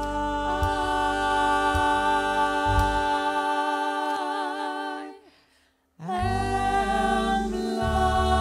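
Three women's voices singing long held notes in close harmony into microphones, over a low sustained backing tone. About five seconds in the chord wavers with vibrato and fades to a moment of silence, then a new held chord begins.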